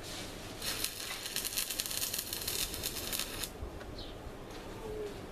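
Stick (arc) welding on steel rebar: the arc crackles and sizzles for about three seconds, starting just under a second in, then stops.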